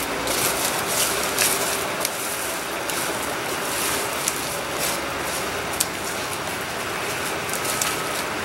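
Footsteps crunching through dry leaf litter and brush on a slope, with twigs snapping, several crunches close together in the first two seconds and single sharp snaps later on, over a steady rushing background noise.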